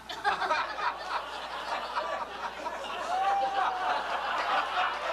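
Audience laughing and chuckling, with scattered voices mixed in.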